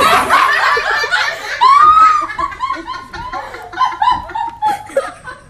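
A person laughing in quick repeated bursts, loudest about two seconds in, where the voice rises and falls in pitch.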